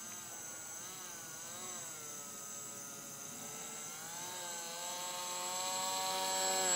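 Electric motor and propeller of a radio-controlled paper airplane whining, its pitch wavering up and down with the throttle as it is slowed for landing. It grows steadily louder over the last few seconds as the plane comes in low toward the pilot.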